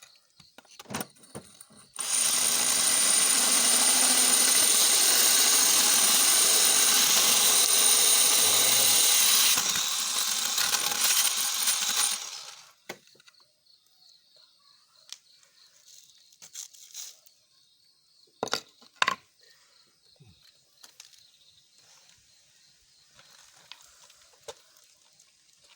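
Makita 12 V cordless hammer drill boring into granite, running loudly for about ten seconds before stopping, then a few small clicks and knocks as it is handled.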